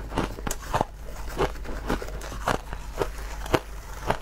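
Crushed ice crunching in short, sharp crunches about twice a second, chewed in the mouth and scooped with a metal spoon. The loudest crunch comes about three and a half seconds in.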